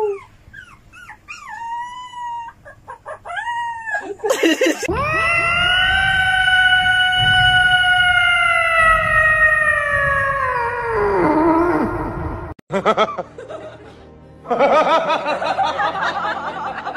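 A small puppy gives a string of short, rising-and-falling whining howls. Then a cat lets out one long, loud yowl lasting about seven seconds that drops in pitch at the end, followed by a noisier jumble near the end.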